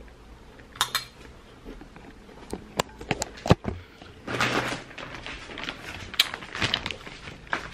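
Scattered clicks and knocks, then short rustling stretches, from handling things at close range.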